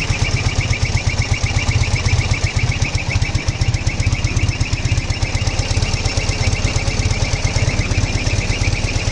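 Ural motorcycle's boxer-twin engine running steadily, with a high whistle pulsing in time with the firing from the right cylinder.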